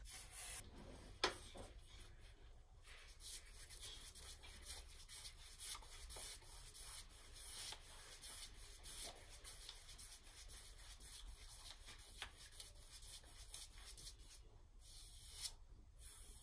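Faint, irregular swishing and rubbing of a paintbrush laying primer onto wooden hull planking, stroke after stroke, with a single sharp tick about a second in.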